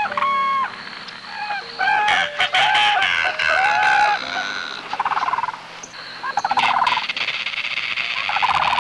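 Chickens calling: a run of loud, pitched calls in the first half, then about three shorter, rasping calls about a second and a half apart.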